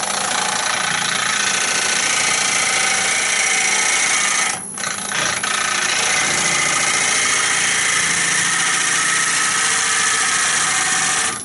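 Bowl gouge cutting the inside wall of a spinning natural-edge bowl on a wood lathe, its bevel opened just enough to cut: a steady, dense shearing noise of shavings coming off. The cut breaks off briefly about halfway through, then resumes. It stops suddenly at the end, leaving the lathe's hum.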